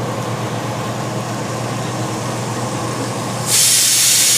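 Onion, tomato and ginger sizzling in oil in a frying pan, then about three and a half seconds in a loud steam hiss starts suddenly: the pressure cooker cooking the rajma beans letting off its whistle.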